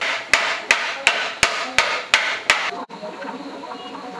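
Hammer blows on the end shield of a 20 kW three-phase generator: eight sharp, ringing strikes, about three a second, that stop abruptly about three seconds in.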